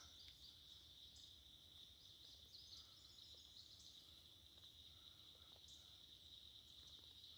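Near silence, with a faint steady high-pitched insect drone, like crickets, and a few faint short chirps.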